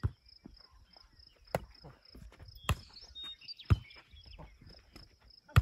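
A volleyball being struck by hands and forearms as it is hit back and forth in a rally: about five sharp smacks roughly a second apart. Crickets chirp in a steady pulse behind.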